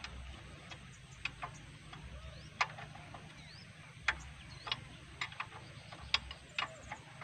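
Sharp metal clicks, irregular, roughly two a second, as a wrench works the bolts on a hand tractor's handlebar bracket.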